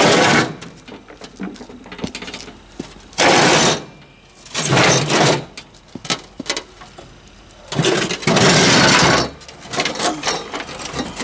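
John Deere riding mower's steel cutting deck scraping and rattling as it is dragged out from under the mower, in four rough bursts with knocks and clicks between them.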